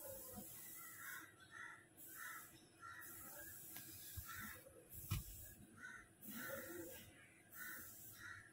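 Crows cawing repeatedly in short calls, with a single sharp metal clink about five seconds in as brake parts are handled.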